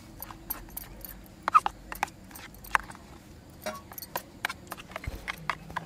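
Steel spoon stirring a thick bread-and-milk mixture in an aluminium tray: irregular clicks, taps and scrapes of metal on metal, several a second, a couple of them ringing briefly.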